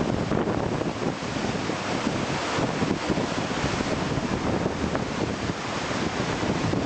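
Heavy surf breaking in a steady rush of noise, with wind buffeting the microphone.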